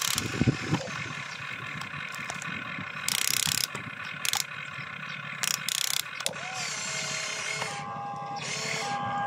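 Motors and gears of a toy RC excavator whining steadily as it digs and raises its arm, the pitch bending up and down in the second half, with several short louder bursts of harsh noise in the middle.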